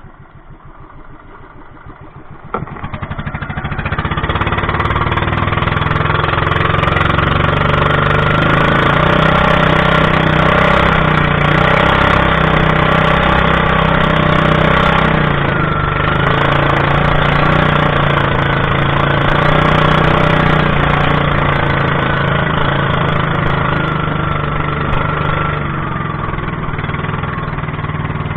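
An engine running slow, then opened up sharply about two and a half seconds in. It settles into a loud, steady run whose pitch wavers a little, dips briefly about halfway through, and eases slightly near the end.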